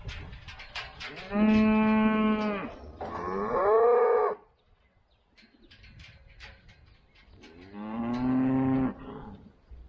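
Cows mooing: two long moos back to back, the first held on one pitch and the second bending in pitch, then a third moo near the end.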